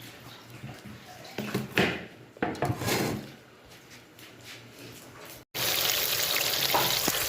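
A few soft knocks and handling rustles, then after a sudden break, a steady loud sizzle of catla fish pieces frying in hot oil.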